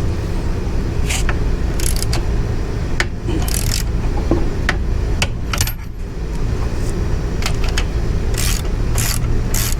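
Hand tools clinking on metal as a bolt on a motorcycle is worked loose: scattered sharp metallic clicks at an uneven pace, over a steady low rumble.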